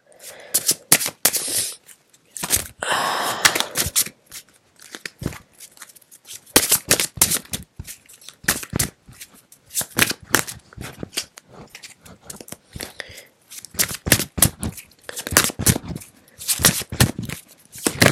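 Tarot cards being shuffled and handled: an uneven run of sharp card slaps and snaps, with one longer rasping riffle about three seconds in.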